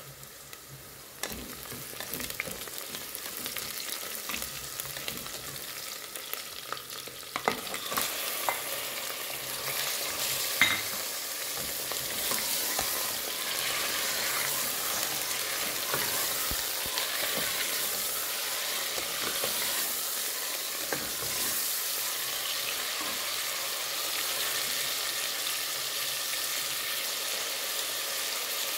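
Sliced onions sizzling in hot oil in a pressure cooker, growing louder over the first ten seconds or so as the oil heats. A spatula stirs them, scraping and knocking against the pot a few times.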